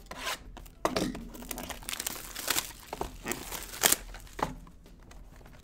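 Plastic wrapping on sealed baseball-card packaging crinkling and tearing as it is pulled open by hand, in a dense run of quick crackles that thins out near the end.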